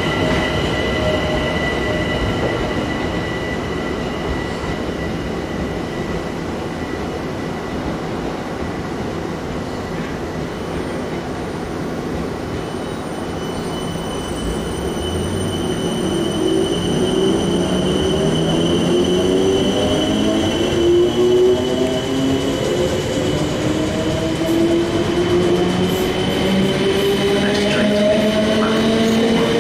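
Electric multiple-unit trains on curved track: a steady high wheel squeal, then from about halfway a traction-motor whine that rises in pitch and grows louder as a train accelerates.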